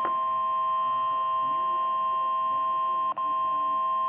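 NOAA weather radio sounding its 1050 Hz warning alarm tone, a steady electronic alarm tone through the radio's speaker that drops out briefly about three seconds in. It signals an incoming severe weather warning broadcast.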